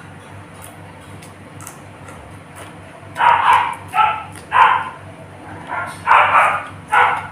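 A dog barking, about six barks in a quick run starting about three seconds in.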